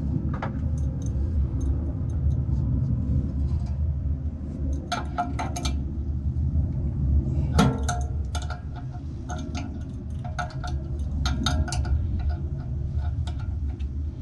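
Irregular metallic clinks and taps of hand tools and screws against metal as a blower motor assembly is fastened back together, in scattered clusters with one sharper clink about halfway through, over a steady low rumble.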